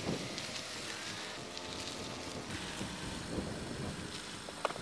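Hyundai Sonata sedan rolling slowly over a dirt lot and pulling up to a stop, with a low, steady engine and tyre noise. Two sharp clicks come near the end.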